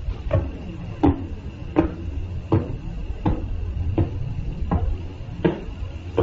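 Recording of a pulsar's radio signal turned into sound: regular knock-like pulses, about three every two seconds, like someone knocking at a door, over a steady hiss and a faint high tone.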